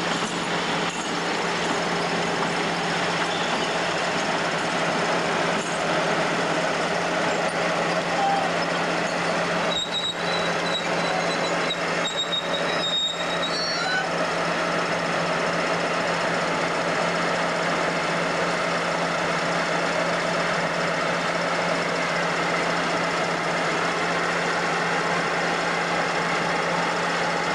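Freight train running past with a steady rumble and a constant low hum throughout. A high-pitched squeal comes and goes for a few seconds, starting about ten seconds in.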